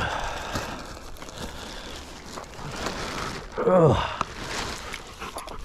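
Rustling and handling noise, with one short vocal sound about four seconds in that falls steeply in pitch.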